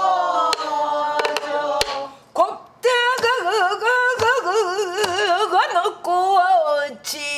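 Female pansori singing, with the drummer herself beating the buk barrel drum. She holds one sung syllable for a long time: it first slides slowly down, then from about three seconds in it is held with a wide, heavy vibrato, and it falls again near the end. Sparse single drum strokes on the buk's head and frame punctuate the voice.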